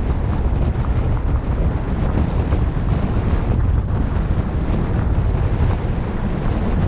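Wind buffeting an action camera's microphone while riding a mountain bike, over a steady low rumble with small rattles from the trail.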